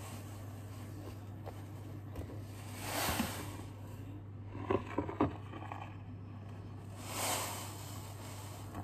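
Fine dry breadcrumbs poured from a cardboard box into a bowl: two soft rushes of falling crumbs, about three and seven seconds in, with a few light knocks of the bowl and box between them. A steady low hum runs underneath.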